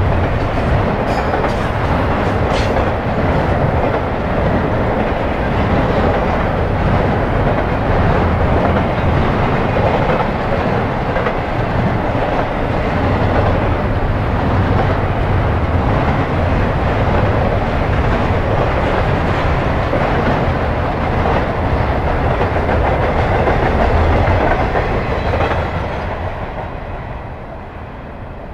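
Florida East Coast intermodal freight train's cars rolling past at speed: a steady loud rumble and rattle of steel wheels on rail, with a few sharp clicks in the first three seconds. The sound dies away over the last few seconds as the end of the train goes by.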